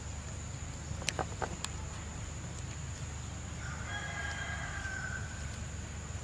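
A rooster crows once, a single call about a second and a half long starting a little past the middle. A few sharp clicks come just after a second in, and a steady high whine runs underneath.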